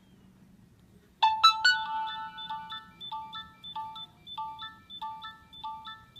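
Nokia 6600 mobile phone playing a polyphonic ringtone. After about a second of quiet it opens with three sharp chord hits, then runs into a quick repeating pattern of short electronic notes.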